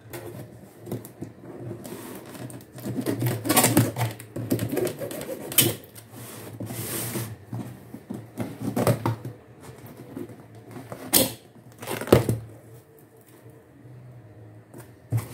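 Packing tape being peeled and ripped off a cardboard shipping box and the box flaps pulled open: irregular crackles, rustles and knocks of cardboard, with a longer tearing stretch about seven seconds in.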